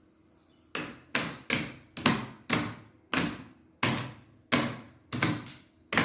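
Repeated sharp tapping knocks, about a dozen at roughly two a second, starting about a second in, each dying away quickly.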